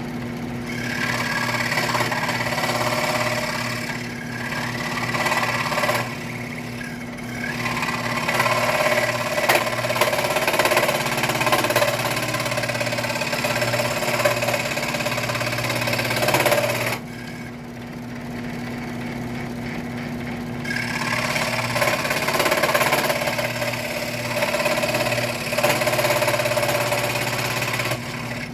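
WEN scroll saw running with a steady motor hum and fast reciprocating blade, sawing into wood in long spells, with a few seconds of running without cutting past the middle. The blade is working hard through thick wood, and she suspects it is too thin for it.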